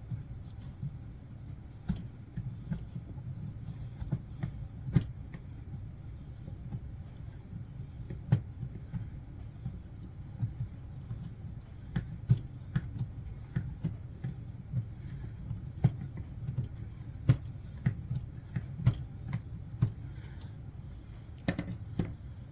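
A knife blade working a stick of fatwood: irregular sharp clicks and snaps as the edge bites into the wood, over a steady low rumble.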